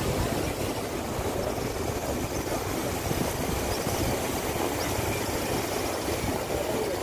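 Steady rushing noise of a river in flood, its fast brown floodwater churning against the bank, an even low rumble with no break.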